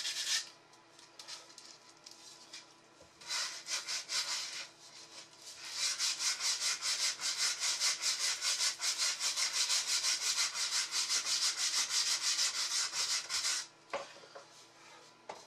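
Wood being sanded by hand with a round 80-grit mesh abrasive disc on an old chair's leg and bent wooden back, with rubbing, scratchy strokes. A few short bursts come first. Then, from about six seconds in until near the end, there is a long run of quick back-and-forth strokes, about four a second.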